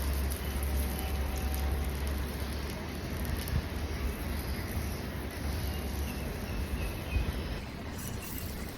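Puff-pastry red bean cakes shallow-frying in oil in a non-stick pan over medium-low heat: a steady, gentle sizzle with a low hum underneath.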